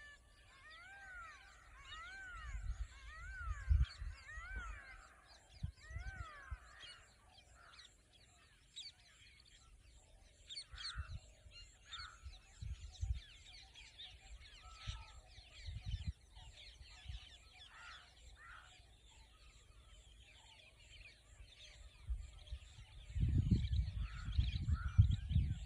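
Birds calling outdoors: a run of repeated arching, honk-like calls for the first six seconds, then many short high chirps from several birds. Low rumbles and thumps come and go underneath, strongest near the end.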